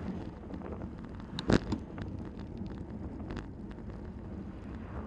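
Wind buffeting the microphone and tyre noise from a bicycle riding on a wet road, with small rattles and one loud sharp knock about a second and a half in.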